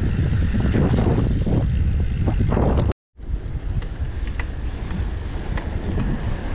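Wind buffeting the microphone of a cyclist's camera while riding, a steady low rumble mixed with road noise. The sound cuts out completely for a moment about three seconds in.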